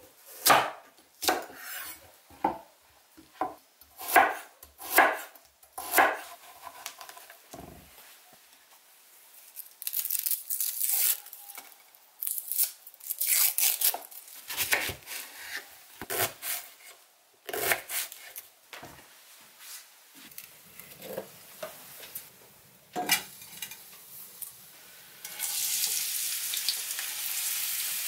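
Kitchen knife cutting vegetables on a wooden cutting board: a run of sharp chops, then scattered cuts and rustling. About 25 seconds in, diced onion is tipped into a hot frying pan and starts a steady sizzle.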